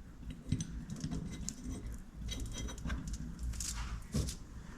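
Faint, scattered clicks and light taps of hand handling: a knife blade's tang being set and pressed onto epoxy-coated handle scales.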